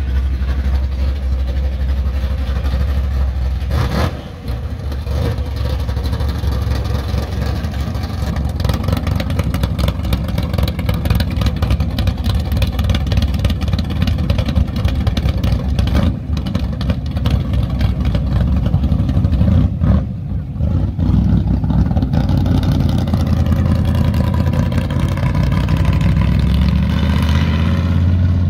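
A classic early-1960s Chevrolet's engine running with a deep, steady rumble as the car pulls away at low speed. Near the end an engine note rises in pitch as a car accelerates.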